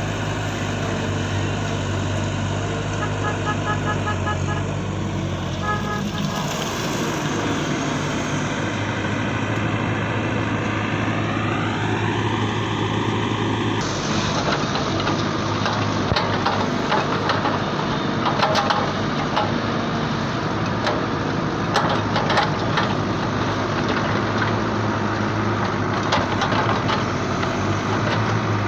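Radio-controlled toy construction machines running: a steady mechanical hum with a short run of beeps a few seconds in and a rising whine, then an abrupt change about halfway to a rattlier sound full of clicks.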